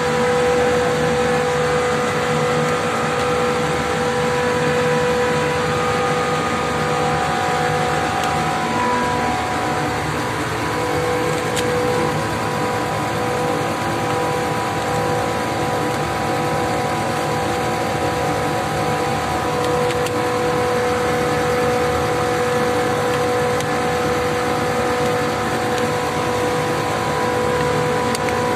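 165 TR air-cooled chiller with twin screw compressors running: a steady, even machine noise with a steady whine over it.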